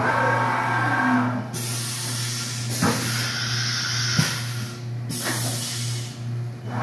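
Haas VF-5 CNC vertical machining center running through a motion cycle: a falling whine in the first second or so as the table and head travel, then three long bursts of hissing with a couple of sharp clicks among them, over a steady machine hum.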